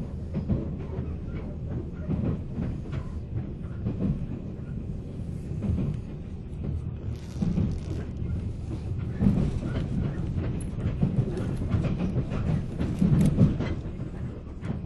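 Running noise heard inside the cabin of a 485-series electric motor car: a steady low rumble with irregular knocks of the wheels over rail joints.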